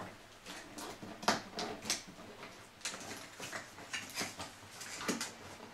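Tall cardboard wine gift box being opened by hand: scattered rustles, scrapes and light taps of cardboard.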